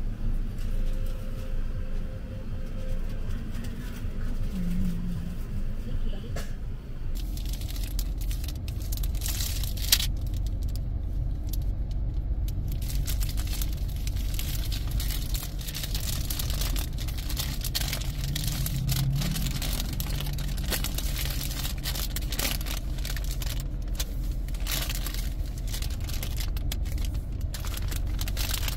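Steady low rumble of road traffic, with frequent small clicks and rattles from about seven seconds in.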